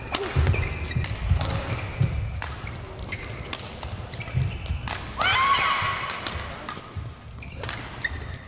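A badminton rally: rackets crack against the shuttlecock every second or so, and players' footsteps thud on the court mat. About five seconds in, a shoe squeaks on the court for nearly a second.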